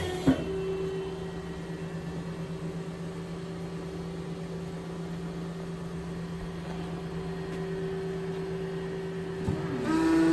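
2007 Kia SKT-15 CNC lathe running under power with a steady hum. A sharp click comes just after the start, and near the end there is a brief rising machine whine.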